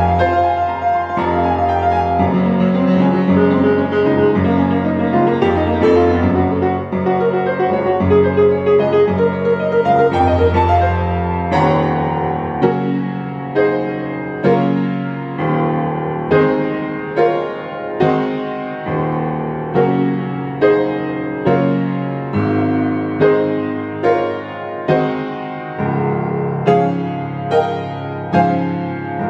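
Upright piano played at speed in a toccata: dense, rapid passagework, then from about halfway through, strong accented notes roughly once a second with quicker notes running between them.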